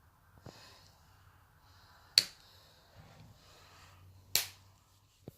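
Two sharp clicks about two seconds apart, with faint handling noise between them.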